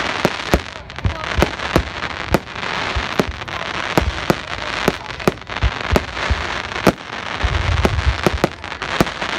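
Aerial fireworks display: a rapid, irregular series of sharp bangs from bursting shells, several a second, over continuous crackling.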